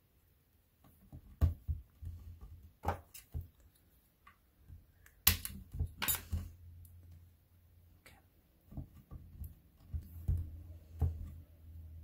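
Scattered knocks, taps and clicks of polymer clay cane and tools being handled on a craft cutting mat, with the two sharpest clicks near the middle.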